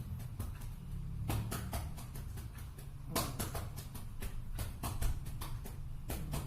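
Cupped-hand chest percussion: a palm clapping on a patient's back, hollow pats in irregular runs of a few a second, over a steady low hum.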